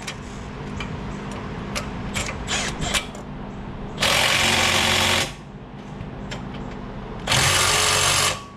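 A cordless power tool run in two bursts of about a second each, driving bolts in on a car's front brake assembly. Small handling clicks come before the first burst.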